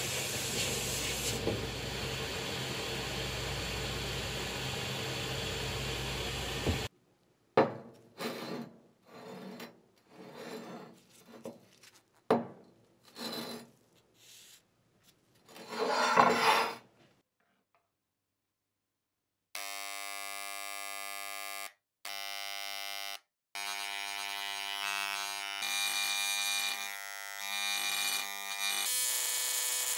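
Sandblasting gun hissing steadily against a cast-iron pan, cutting off about seven seconds in. Then a series of rubbing, scraping strokes on the pan, a short pause, and from about twenty seconds an electric engraving pen buzzing with a steady hum as it traces the cast lettering, stopping briefly twice.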